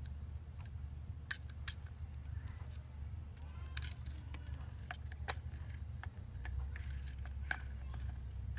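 Irregular light clicks and small metallic taps of a replica lightsaber hilt and its parts being handled during disassembly, over a steady low hum.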